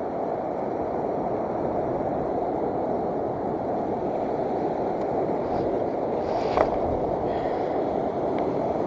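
Steady rushing noise of wind on the microphone and breaking surf on a beach, with one sharp click about two-thirds of the way through.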